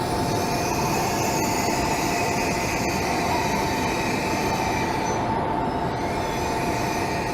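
Shinkansen train running along a station platform: a steady rumble of wheels and running gear with a steady two-note whine held above it.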